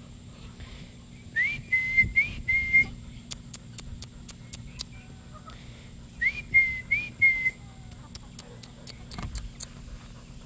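A clear whistled phrase, a rising note followed by a few level notes, heard twice about five seconds apart.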